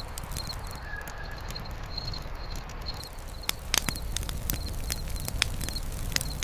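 Wood campfire crackling: irregular sharp pops and snaps over a low steady rumble, with a cluster of louder pops a few seconds in. A faint high chirp, like an insect's, repeats a couple of times a second in the background.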